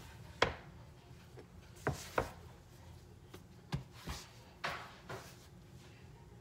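Hands patting, pressing and tucking bread dough on a floured wooden cutting board: a scatter of short, soft knocks and pats against the board, with light rubbing between them.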